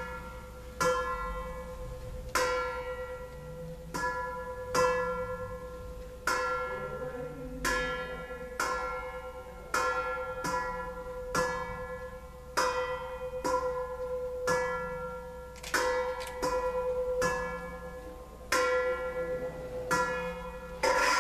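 Metal bowls struck again and again at an uneven pace of about one strike a second, each strike ringing like a bell and fading. A steady held tone runs underneath.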